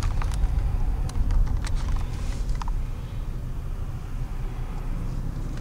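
Car interior noise while driving slowly: a steady low rumble of engine and road heard from inside the cabin, with a few short clicks in the first three seconds.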